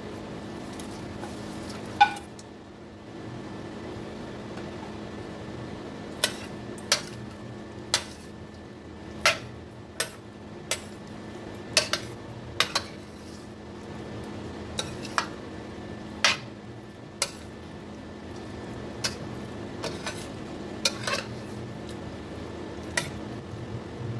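Metal spoon knocking and clinking against a stainless steel pot while stirring fried chicken pieces into sauce: one sharp knock about two seconds in, then irregular clinks roughly once a second from about six seconds on. A steady low hum runs underneath.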